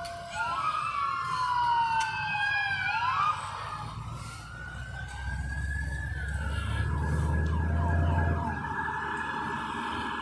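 Police car sirens wailing, two or more overlapping, each rising and falling in pitch. In the last few seconds one siren switches to a faster yelp. A vehicle engine rumbles low through the middle, growing louder around eight seconds in.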